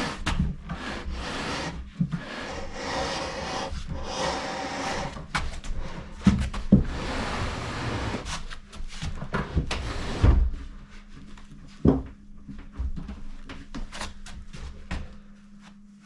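Unfinished plywood cabinet scraping and rubbing as it is shoved into a corner, with several heavy wooden knocks and bumps. The scraping stops about ten seconds in, leaving a few scattered knocks and taps.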